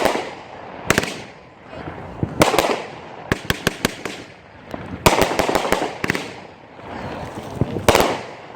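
Backyard consumer fireworks going off: a string of sharp bangs a second or two apart, some trailing into a fading crackle, with a quick run of small cracks about three seconds in.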